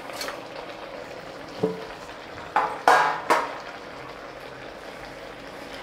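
A metal spoon scraping and clattering against a metal pot as leafy greens are stirred into a simmering curry, loudest about halfway through, over a faint steady sizzle.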